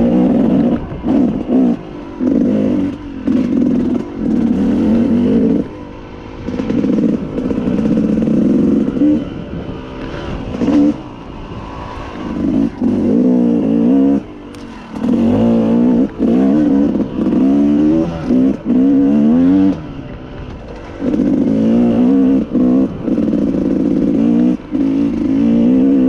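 Yamaha YZ250 two-stroke dirt bike engine on the move, revving up and dropping off again and again as the throttle is worked on and off, with short lulls between bursts.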